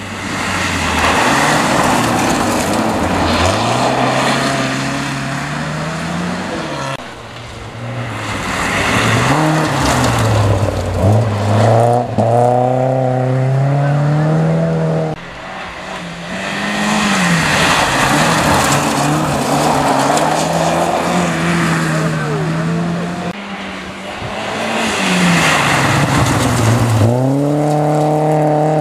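Rally cars at full throttle on a loose gravel stage, one after another. The engine note climbs and drops repeatedly through gear changes and lifts, over the rush of tyres on gravel.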